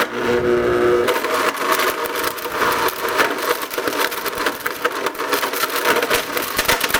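Blender running with a pair of Beyerdynamic DT990 Pro headphones inside, smashing them apart: a dense, rapid clatter and cracking of broken pieces thrown around the jar. The motor's steady hum is clear for about the first second, then the clatter takes over.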